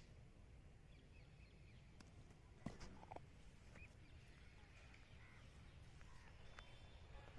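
Faint outdoor ambience with scattered, distant bird calls and a low steady rumble, broken by one short knock a little under three seconds in.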